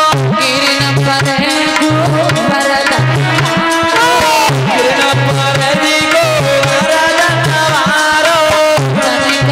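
Instrumental music accompanying a Hindi devotional bhajan: a hand drum plays a steady rhythm, with a deep stroke about once a second, under sustained melody notes.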